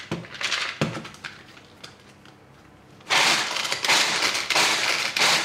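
Roasted pistachios being chopped in a small hand-operated mini chopper: a few plastic clicks and knocks as the lid goes on, then, about three seconds in, a loud pulsing rattle and crunch of nuts being thrown against the blades for about two and a half seconds.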